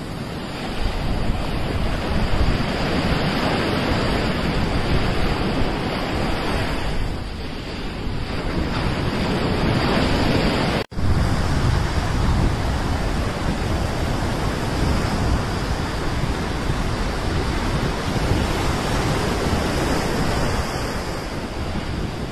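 Sea surf washing up on a sandy beach, a steady rushing wash with wind rumbling on the microphone. The sound drops out for a split second about eleven seconds in.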